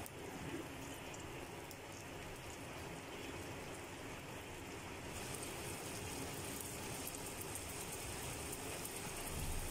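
Fish curry broth simmering in a pan: a steady, soft bubbling hiss.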